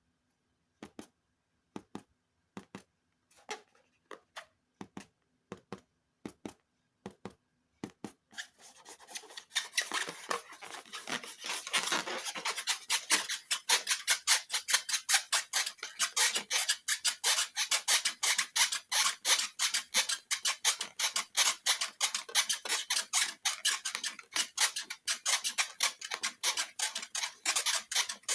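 Scissors snipping: a few separate snips at first, then rapid, continuous cutting at about three strokes a second from about a third of the way in.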